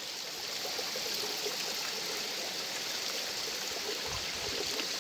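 Steady rushing of a small stream, even and unbroken, with a brief low bump about four seconds in.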